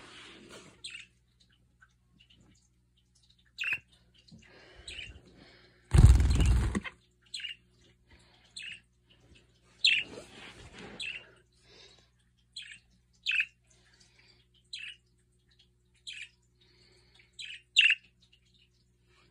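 Budgerigar giving short, separate chirps, a dozen or so spread through, with a loud scuffing noise lasting about a second about six seconds in.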